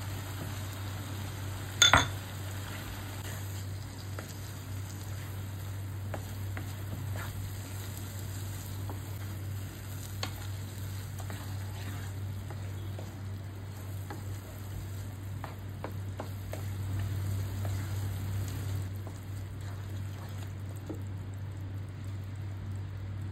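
Masala gravy with freshly added green peas sizzling in a pan while it is stirred, with one sharp clink of the utensil against the pan about two seconds in and a few light taps later. A steady low hum runs underneath.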